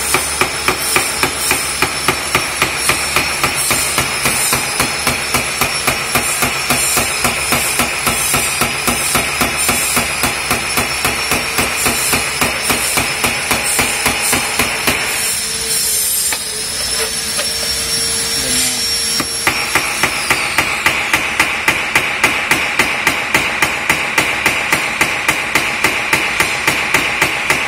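A hammer striking the metal hook of a Toyota Etios wiper arm in a steady run of about two to three blows a second, stopping for a few seconds about halfway through and then starting again. The blows peen the worn hook's lip so it spreads and grips again, tried as a fix before welding.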